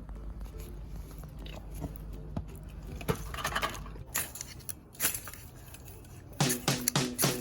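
Someone eating: crunching and chewing with scattered small clicks. Music comes in near the end.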